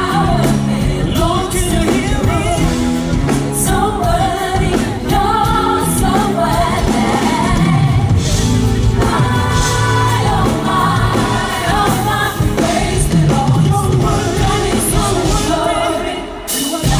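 Live band playing a song: a male singer's amplified vocals over electric guitars and drums. The music drops off for a moment just before the end.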